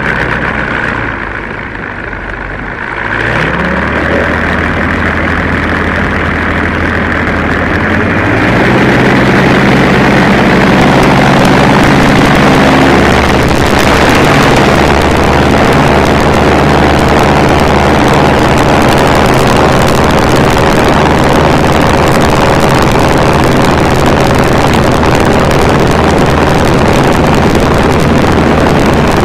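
MWfly B25L 150 hp aircraft engine and propeller of a BushCaddy R80: briefly throttled back, rising in pitch about three seconds in, then going up to full takeoff power about eight seconds in and holding steady and loud through the takeoff roll and climb-out.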